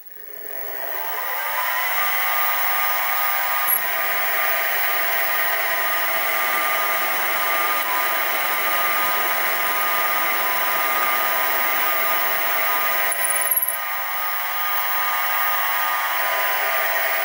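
Sieg SX2P mini-mill spindle speeding up with a rising whine over about two seconds, then running steadily while a 4 mm drill bit bores into a metal block. There is a click about four seconds in and a brief louder noise about thirteen seconds in.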